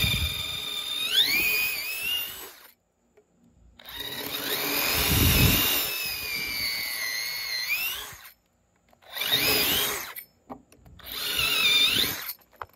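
Festool cordless drill boring pilot holes into a wooden post through the holes of a steel post bracket. It runs in four bursts: one stopping about two and a half seconds in, a long one from about four to eight seconds, and two short ones near the end. Its whine climbs in pitch toward the end of several runs.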